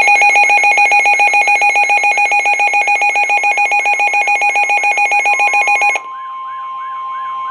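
Weather radio alert tones: a loud electronic alarm beeping rapidly, about eight times a second, that cuts off about six seconds in. It gives way to a steady single tone near 1 kHz with a warbling tone over it, the kind of warning alarm tone that comes before a weather radio warning message.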